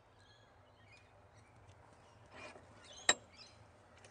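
Quiet handling of a chainsaw chain mounted on a sharpening jig as it is set into a metal bench vise, with one sharp click a little past three seconds in.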